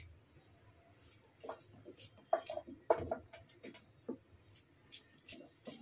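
Knife cutting raw green mango into small pieces: faint, irregular clicks and taps, about two a second.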